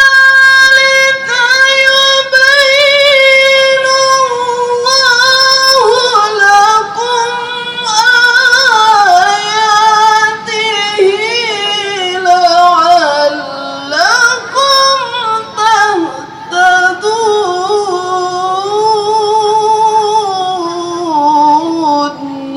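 A woman chanting Qur'an recitation in the melodic tilawah style, holding long ornamented phrases in one loud voice. Her pitch sinks gradually across the passage.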